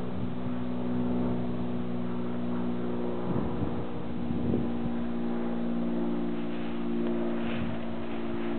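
An engine running steadily, a constant low hum at an even pitch, with a few faint brief bumps.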